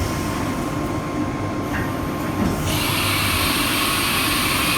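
CNC milling machine running steadily with a low hum; a bit over halfway through a steady hiss comes in suddenly.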